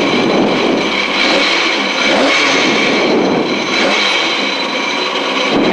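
Mk2 Ford Escort rally car's engine running loudly with the car stationary, its revs rising and falling a few times, heard from inside the cabin.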